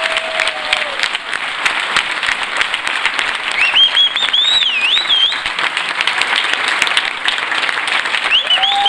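Audience applauding at the end of a tango exhibition as the last note of the music fades out about a second in. Midway through, someone gives a long, high, wavering whistle over the clapping.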